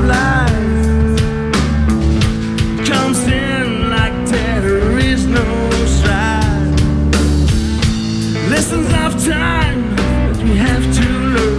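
Live rock band playing: electric guitars and drum kit, with a lead line of bending, sliding notes on top.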